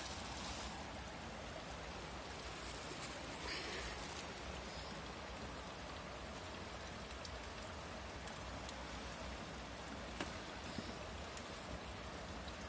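Steady rush of river water running over rocks, with brief rustles of plastic sheeting being handled and folded, and a couple of light clicks.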